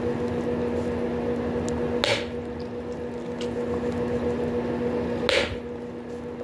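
Bubblegum being chewed and blown into bubbles close to the mic, with two sharp snapping pops, about two and about five seconds in. A steady low hum runs underneath.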